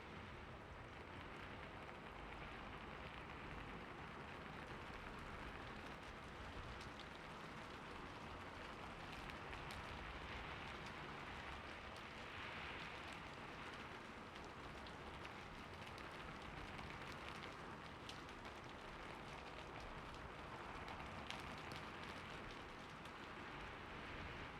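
Steady, soft rainfall pattering on the ground and foliage, an even hiss with scattered faint drop ticks.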